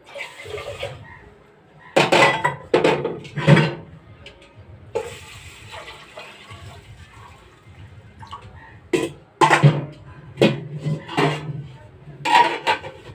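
Water poured from an aluminium pot into an aluminium water jug, a steady splashing stream in the middle, with metal pots and lids clanking several times before and after it.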